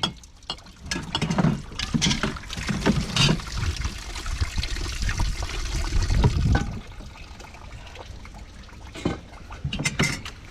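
Hot water poured into a dish-washing basin that already holds soap, splashing and trickling unevenly for about the first seven seconds, then dying down, with a few short knocks near the end.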